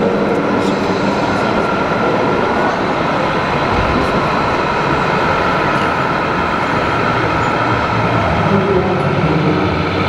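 1/14-scale RC semi truck driving slowly, its sound module playing a steady diesel-truck engine rumble, over the continuous din of a crowded exhibition hall.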